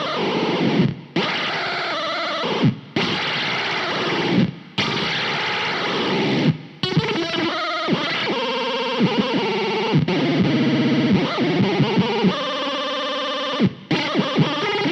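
Electric guitar, a Rivolta Mondata VIII, played through an RPS Effects Arcade Machine pedal set to a high octave with very fast modulation. It gives distorted, warbling, synth-like notes that cut off abruptly several times between phrases.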